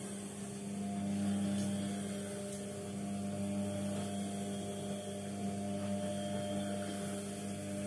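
A steady low electrical hum with a stack of even overtones, unchanging throughout.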